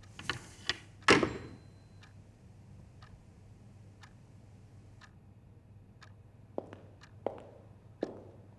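Rotary-dial telephone handset clattering down into its cradle, the loudest knock about a second in. Then a clock ticking about once a second, with four soft thuds near the end about three-quarters of a second apart.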